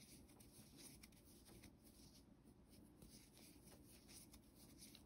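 Near silence, with the faint, irregular ticks and rustle of a metal crochet hook drawing cotton yarn through double crochet stitches.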